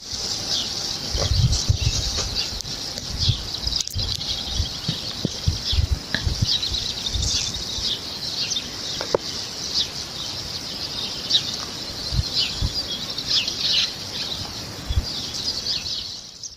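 A chorus of many small birds chirping and trilling continuously outdoors, with occasional low thumps underneath.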